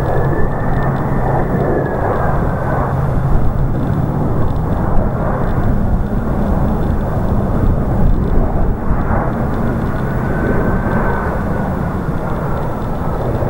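Jet engine noise of a FedEx Boeing 767-300 freighter's two GE CF6 turbofans landing: a steady, loud rumble and rush with a thin high fan whine that sags and fades a few seconds in, then comes back later.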